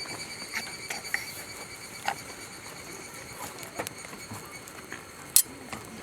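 Wood campfire crackling, with irregular small pops and one loud sharp pop about five seconds in.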